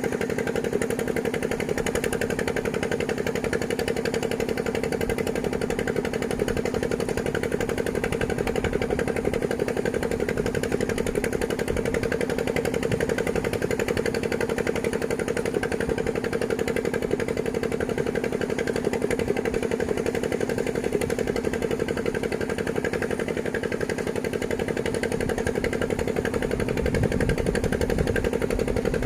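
An engine running steadily with a rapid, even pulse, holding the same pitch throughout.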